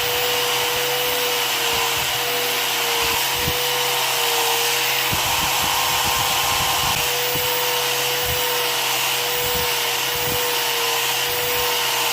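Electric hand grinder fitted with a homemade velcro sanding disc, running with a steady whine that wavers slightly in pitch as it sands a wooden knife handle and sheath, with a few light knocks of the work against the disc. It cuts off abruptly at the very end.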